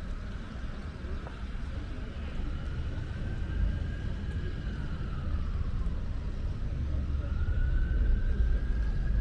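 Emergency vehicle siren in a slow wail, its pitch rising and falling twice over a steady low rumble.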